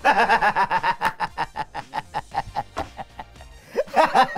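A man laughing hard in quick repeated bursts. The laughter eases off past the middle, then breaks out loudly again near the end.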